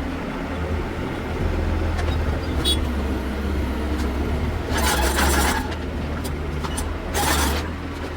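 Hitachi excavator's diesel engine running steadily, with two short rushing noises, about five and seven seconds in.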